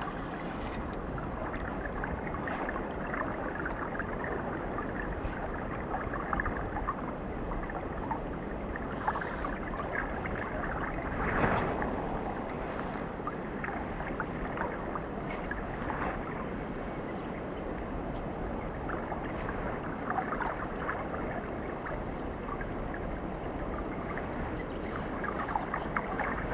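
Mountain stream water rushing steadily, with small splashes and gurgles now and then.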